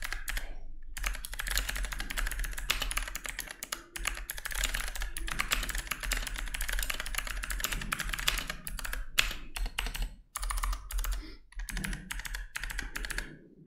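Continuous fast typing on a mechanical keyboard with clicky switches, in a 3D-printed plastic case mounted on TPU gaskets: a crisp click on each keystroke over a case sound that is deep, with no ping or reverb. The typing pauses briefly a few times.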